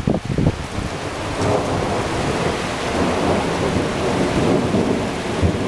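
Windstorm noise: a steady rush of wind and rain with a heavy low rumble underneath.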